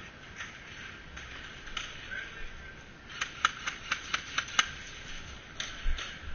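Airsoft gun firing a quick string of about eight sharp shots over a second and a half, starting about three seconds in.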